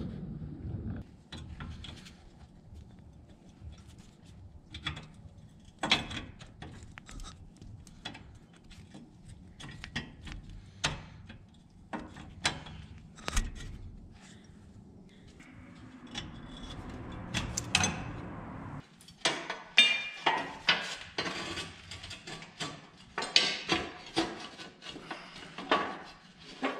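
Pliers and hand tools on a rusty forklift throttle linkage: scattered metallic clicks, taps and scrapes as the pin is worked out of the linkage joint. In the last several seconds the metal clinking and clattering comes thick and fast.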